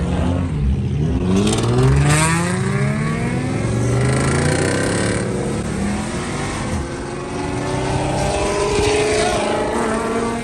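V8 muscle car engine at full throttle, its pitch rising hard through the revs and dropping back at shifts, then running on more steadily.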